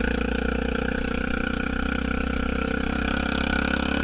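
Honda Rubicon ATV's single-cylinder engine running at a steady, even pitch.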